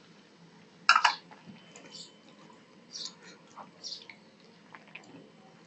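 Fingers mixing rice and curry on a steel plate: scattered small wet squelches and clicks, with one sharp, louder knock about a second in.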